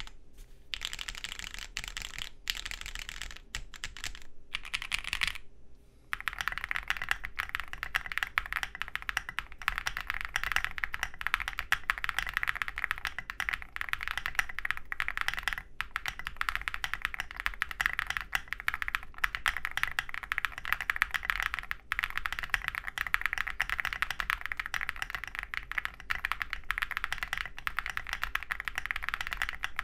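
Typing on custom mechanical keyboards. For about the first six seconds it is a plateless Studio Kestra NUE with lubed, filmed FFFF switches and CRP keycaps, in sparser strokes. After a short break comes a fast, steady patter on an OwLab Jelly Epoch with lubed, filmed Durock POM linear switches, a polycarbonate plate and SA keycaps.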